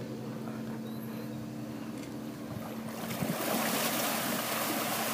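A large sailing yacht's engine hums steadily as it manoeuvres. About three seconds in, a loud rushing churn of propeller wash sets in as the water at the stern is thrown up.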